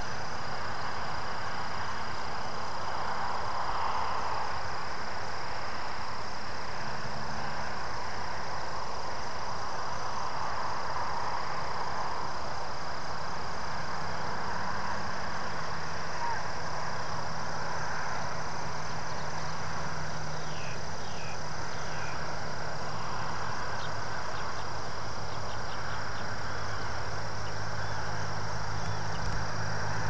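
Wetland ambience: a steady high-pitched insect drone, with a continuous hiss of background noise and a low steady hum underneath. A few faint short chirps come about two-thirds of the way through.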